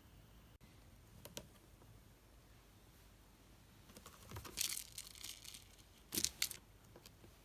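Several short rustling, crinkling noises, the loudest in a cluster from about four to six and a half seconds in.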